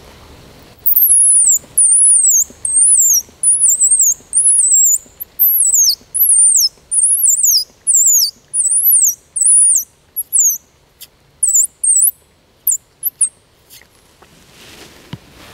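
A traditional squirrel call blown in a run of sharp, very high-pitched falling squeals, at first about one to two a second, then shorter and sparser near the end, to draw squirrels in.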